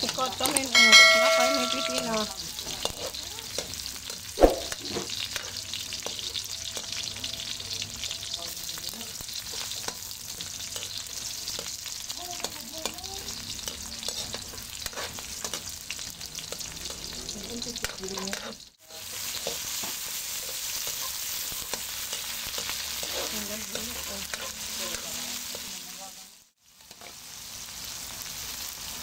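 Sliced onion and garlic sizzling in hot oil in a wok, with a spatula scraping and clinking against the pan now and then. A short chime sounds about a second in, and the sizzle drops out briefly twice later on.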